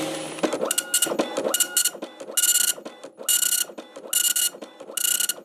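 Desktop printer printing: the print head makes six short passes across the paper, a little under one a second, each with a whirring motor tone.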